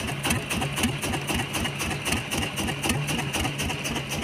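Small boat engine idling: a steady low hum with a fast, even clatter.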